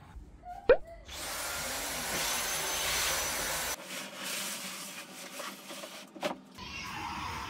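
A vacuum cleaner runs steadily for about three seconds with a faint high whine, then cuts off abruptly. After it come quieter knocks and rustling of toys being handled.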